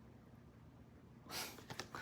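Near silence, then from about two-thirds through a soft rustle with a few faint clicks, like things being handled close to the microphone.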